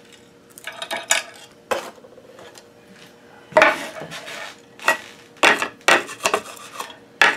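Hand tools and a wooden block being moved about and set down on a hard work board: irregular clatters, sliding rubs and several sharp knocks, busiest in the second half.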